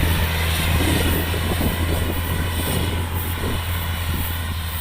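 Diesel engine of a tracked farm machine in a rice field running steadily under load, a constant low hum.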